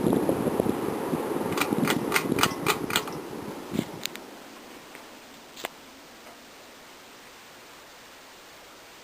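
Breeze from a Homestead Vogue Fan ceiling fan buffeting the microphone as a low rumbling wind noise, with a quick run of about six clicks. It dies away about four seconds in, leaving a faint steady hiss and a single click.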